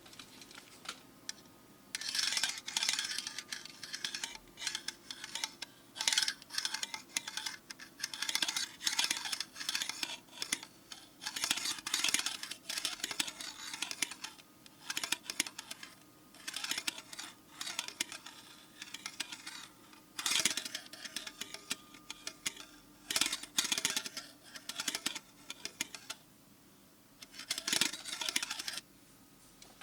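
Irregular scratching, tapping and rattling in quick, uneven bursts with sharp clicks, pausing briefly near the end.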